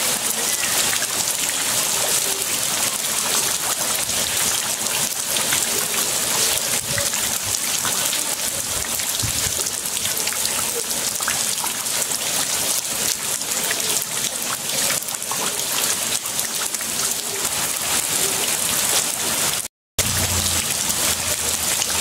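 Steady rain falling on a concrete slab and into standing floodwater: a dense, even hiss of drops splashing on water and wet stone. The sound cuts out for a moment about two seconds before the end.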